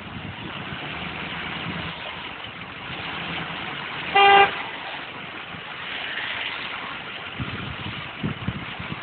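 A pickup truck running at idle, with one short honk of a vehicle horn about four seconds in.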